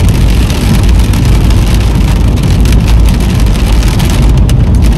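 Rain falling on a moving car's windshield and body, heard from inside the car over a steady low road and engine rumble, with a few sharp drop taps near the end.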